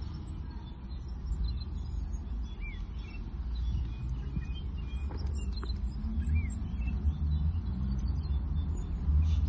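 Outdoor ambience: a steady low rumble with a few short bird chirps scattered through it, and two faint light clicks about halfway through.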